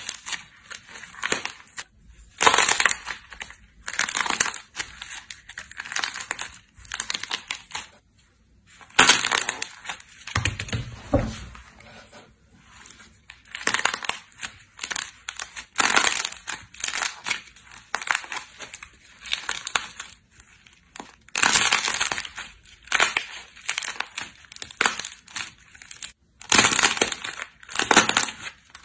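Slime being squeezed and worked by hand, in irregular bursts of crackling, squishing sound with short pauses between; a deeper squelch comes about ten seconds in.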